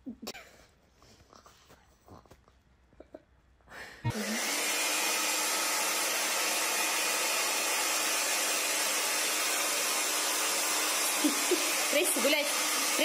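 A pet-grooming high-velocity dryer switches on abruptly about four seconds in and runs steadily, blowing out a dog's thick white undercoat. Before it there is near quiet with a few faint small sounds, and near the end voices come over the noise.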